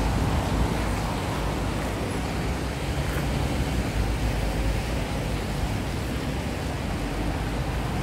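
Steady street traffic noise of cars on wet roads, with a constant low rumble underneath.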